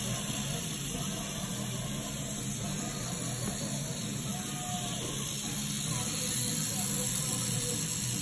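Electric tattoo machine running with a steady buzz, a little louder from about six seconds in, as the needle goes back into the skin to colour the tattoo.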